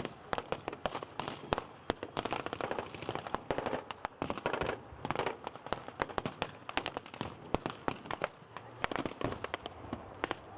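Irregular crackle of blank small-arms fire: many sharp shots overlapping, in places packed into quick runs like machine-gun bursts.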